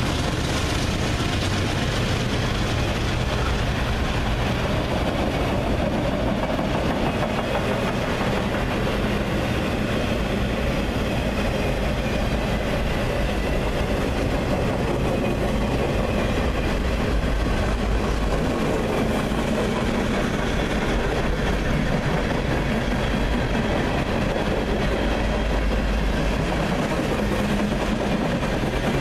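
Freight train rolling past in a steady rumble, its wheels clacking over the rails.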